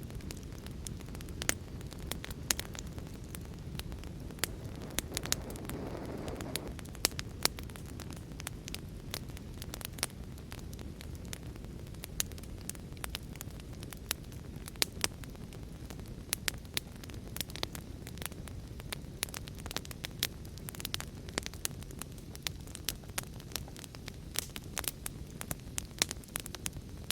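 Wood fire in a fireplace crackling with frequent sharp pops, over a steady low rush of rain.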